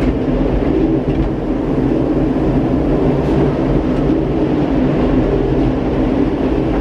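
Gateway Arch tram capsule running along its track, a steady rumbling hum heard from inside the small car.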